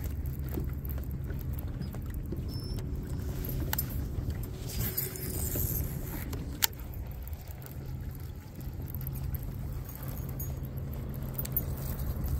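Steady low hum on a fishing boat, with a few sharp clicks and a brief hiss about five seconds in.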